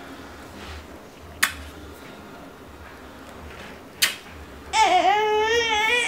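An infant's high, wavering fussing whine that starts about three-quarters of the way through. Before it come two sharp clicks, about two and a half seconds apart.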